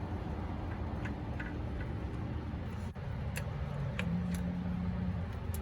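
A few light, sharp metallic clicks, parts and tools being handled while fitting a timing chain tensioner arm, over a steady low background hum.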